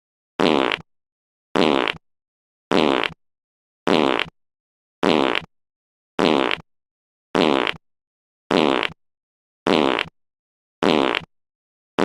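A fart sound effect played on a loop: the same short fart, about half a second long, repeats a little less than once a second, with dead silence between each.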